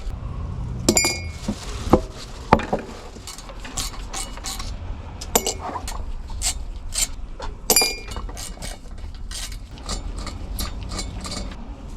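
Irregular metallic clinks and taps as a diesel heater is unscrewed and its screws and metal parts are handled, a couple of them ringing briefly.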